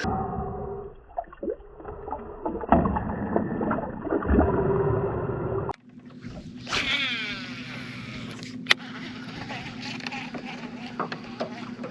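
Water splashing and knocking in a small fishing boat as a largemouth bass is let go. It ends abruptly about six seconds in, giving way to a steady low hum with a brief whir and scattered clicks.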